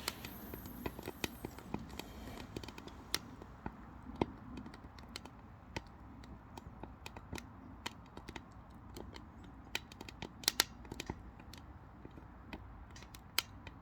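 Oak logs burning low in a wood stove, giving off irregular small crackles and sharp pops, with a few louder pops in the second half.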